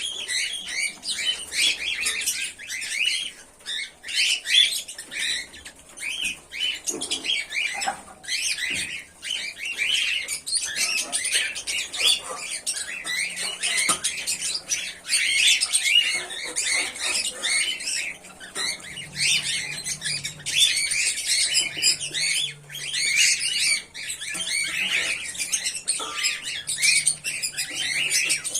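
Pearl cockatiels chirping and squawking continuously in a dense run of overlapping short calls.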